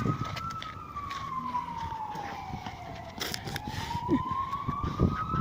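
Emergency vehicle siren in a slow wail, its pitch falling over about three seconds and then rising again toward the end, over scattered low knocks and rumble.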